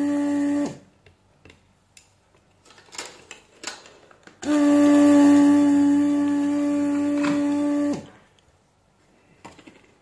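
Small electric motor of a desoldering pump humming at a steady pitch. It switches off just under a second in, runs again for about three and a half seconds and winds down with a brief falling pitch. A few light clicks come in between.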